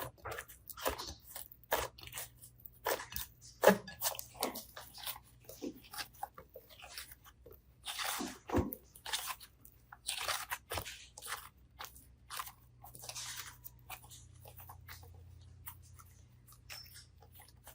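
Slime being handled and squeezed: irregular crunchy clicks and short crackling squishes, with a few longer crackles.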